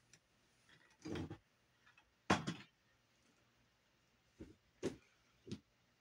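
About five short knocks and clatters of things being handled while an eyeshadow palette is fetched, the loudest a little over two seconds in.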